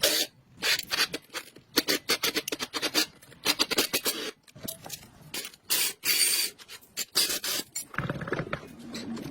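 Rapid, irregular scraping strokes of a hand tool over a hard surface. About eight seconds in, they give way to a steadier, denser rasping.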